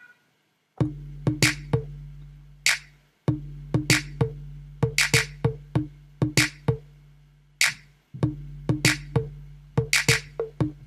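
Hip-hop drum pattern played back from an Akai MPC Touch, starting a little under a second in: sharp drum hits in a looping beat over a steady low bass tone, which cuts out briefly twice as the loop restarts.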